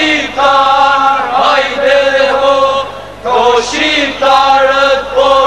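Men's voices singing an Albanian folk song together in a chant-like style, short phrases of held notes with brief breaks between them.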